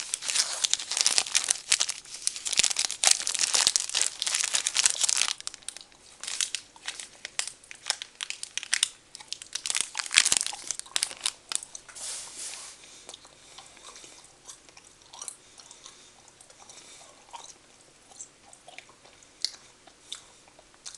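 A candy-bar wrapper crinkling as it is pulled open, then biting into and chewing a French Nougat bar. The crinkling fades out about five seconds in, and the chewing grows fainter after about twelve seconds.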